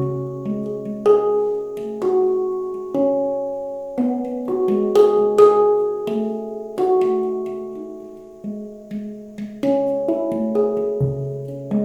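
Handpan played by hand: single struck notes, each with a sharp tap and a long ringing tone with overtones, overlapping in a slow, unhurried melody.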